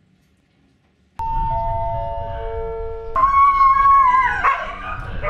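A station public-address chime plays four notes stepping down in pitch about a second in. A dog answers it with a long howl, held and then falling away.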